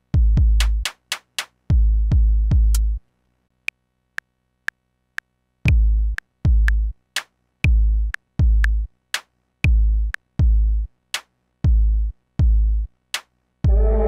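Drum samples played on a 1010music Blackbox sampler: deep, long kick drums with sharp hi-hat ticks. The kicks drop out for about two seconds partway through, leaving only light ticks, then return in a steady beat of about two a second.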